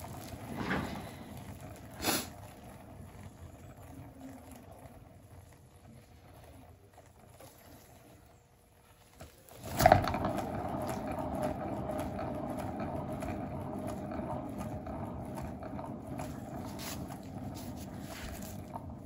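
Paint-pouring spinner turning a round painted panel: a low steady whirr, with short knocks near the start and a sharper knock about halfway, after which the whirr runs on louder and steady with a faint hum in it.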